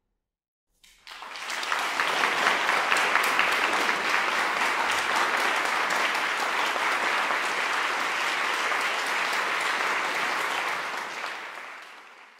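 Audience applauding: the clapping starts about a second in after a moment of silence, holds steady, and fades away near the end.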